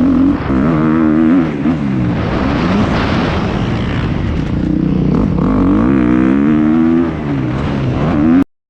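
Dirt bike engines riding, revving up and down over and over as the riders work the throttle and gears. The sound cuts off suddenly near the end.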